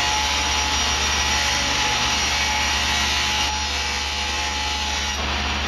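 Woodworking power tool running steadily as wood is cut, fed through with a push stick, with a slight change in the hiss about three and a half seconds in.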